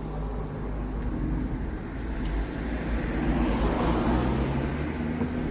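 Motor vehicle engine running nearby with a steady low hum, and road noise that swells and fades about halfway through, as from a car passing.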